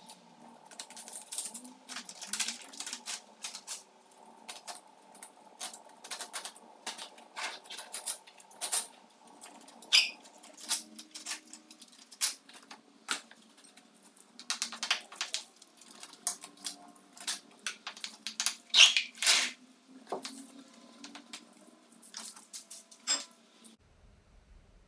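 Irregular small scrapes, clicks and taps of hand work along a sawn-out screed edge beside the tile edge, with loose crumbs of screed being scraped and picked out. The sharpest scrapes come in clusters around the middle and about three quarters of the way through.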